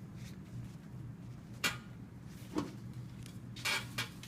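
A few short metal clinks and taps as small carburetor parts and tools are handled on a workbench, over a low steady hum.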